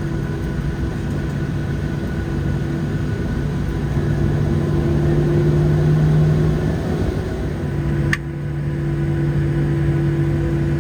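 Boeing 737-700's CFM56 jet engines running at taxi power, heard from inside the cabin as a steady hum over a low rumble. The sound swells a little midway, dips briefly, and a single sharp click comes about eight seconds in.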